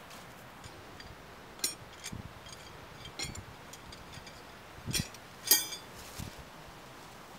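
Iron smithing tools being set down among other metal tools: a few light clicks and knocks, then a sharp metallic clink with a brief ring about five and a half seconds in as an iron bar is laid down.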